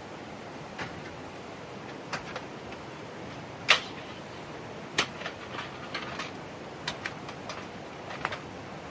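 Steady rush of a mountain stream, with about a dozen scattered sharp clicks and knocks on top, the loudest a little under four seconds in.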